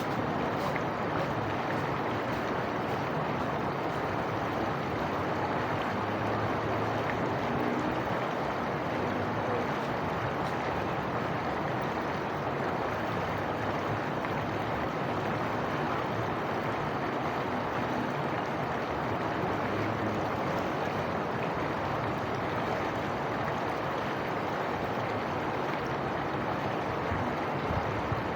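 Water flowing with a steady, even rush.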